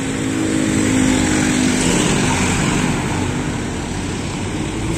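Street traffic: a motor vehicle's engine drone passes close by, swelling about a second in and easing off again, over the steady hum of the road.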